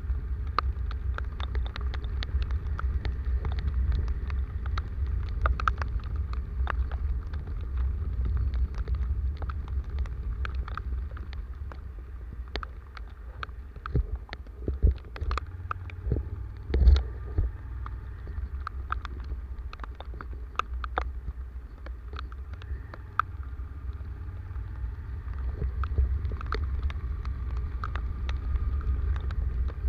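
Rainstorm wind buffeting the microphone with a steady, gusting low rumble, and many sharp taps of rain striking close by. A few louder knocks come around the middle, the loudest about 17 seconds in.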